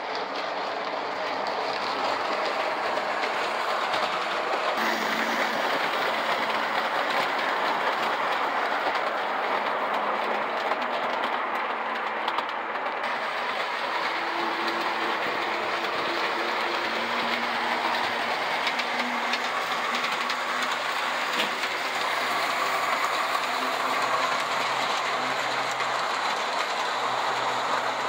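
O scale model passenger train, a Lobaugh Union Pacific FEF 4-8-4 pulling Walthers cars, running steadily on the layout track. Its metal wheels give a continuous rolling rumble, clicking over the rail joints.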